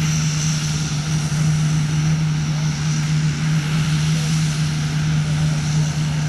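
Twin-turboprop Antonov transport aircraft's engines running on the ground as it taxis past close by. A steady low propeller drone carries a faint high turbine whine above it.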